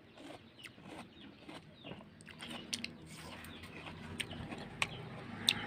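A person chewing a mouthful of honeydew melon: irregular small mouth clicks and smacks.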